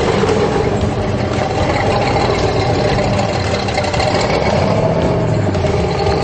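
Off-road 4x4 engine running loud and steady, its pitch rising and falling as the throttle is worked, with a constant rush of noise over it.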